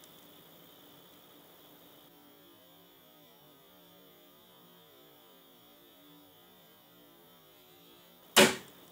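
Generic Adrenaclix epinephrine autoinjector firing with one sharp snap near the end, its spring-loaded mechanism released by slowly building pressure, here about 78 ounces of force. Before it, only a faint steady electrical hum.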